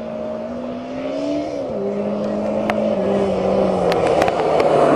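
Motorcycle engine of a home-built dune buggy driving on a dirt track, its revs climbing and then dropping in several steps. The onlookers take this for a slipping clutch.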